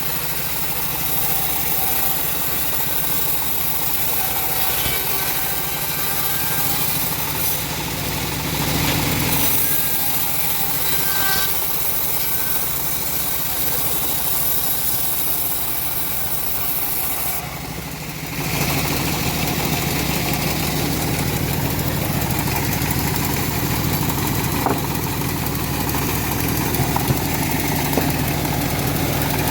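Engine of a homemade bandsaw mill running steadily. About eighteen seconds in it dips briefly, then runs louder and fuller.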